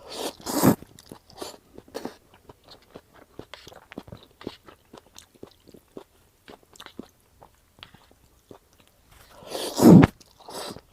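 Close-up mouth sounds of a person eating rice noodles: a louder burst as he takes the first mouthful, then many small irregular chewing clicks, and another louder burst near the end.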